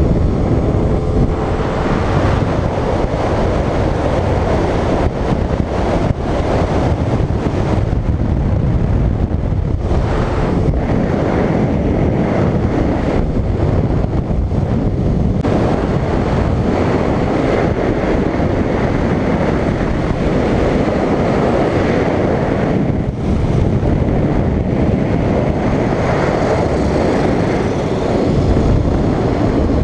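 Wind rushing over the microphone of a passenger on a moving motorcycle, with the bike's engine running steadily underneath at road speed.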